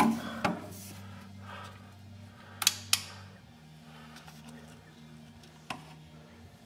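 Handling noise from a handheld camera being moved and refocused: a few sharp clicks and knocks, the loudest at the start and as a close pair about two and a half seconds in, over a low steady hum.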